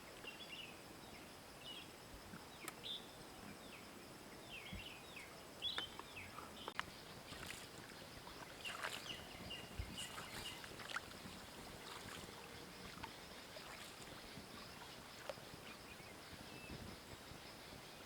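Faint outdoor sounds by water: many short high chirps in the first half, then light water splashes and small knocks in the middle.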